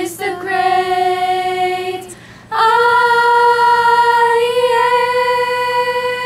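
Five young girls singing a cappella together on one pitch: a note of about two seconds, a short break, then a long held final note.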